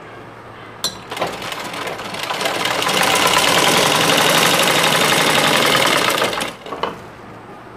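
Domestic sewing machine stitching an elastic waistband, picking up speed after a second or so, running fast and steady for several seconds, then stopping near the end with a few clicks.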